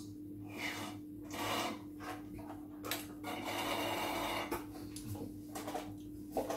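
Noisy sucking and slurping of juice from a small drinks carton held to the mouth, in several spurts, the longest about a second and a half.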